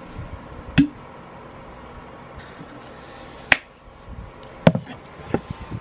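Several sharp clicks and knocks from a plastic water bottle with a flip-up straw lid being handled and drunk from, over a steady faint hiss. The loudest click comes about three and a half seconds in.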